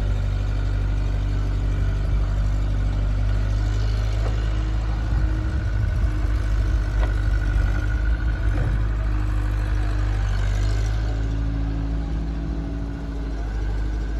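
Diesel engines of a JCB backhoe loader and a farm tractor running steadily, the engine note shifting to a different pitch about eleven seconds in.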